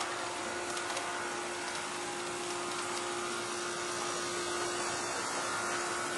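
G-scale model train running on outdoor track, with a steady electric motor whine over an even hiss and a few light clicks about a second in.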